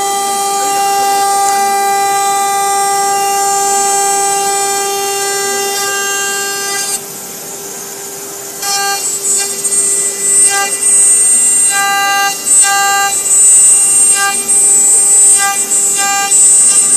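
CNC router spindle running with a steady high whine while its bit cuts into a plastic sheet. About seven seconds in the sound drops briefly, then from about halfway it turns louder and comes and goes in short bursts.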